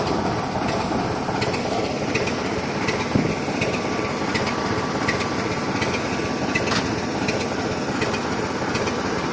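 Class 50 diesel locomotive's English Electric 16-cylinder engine running steadily at idle: an even, dense engine noise with a faint thin whine over it.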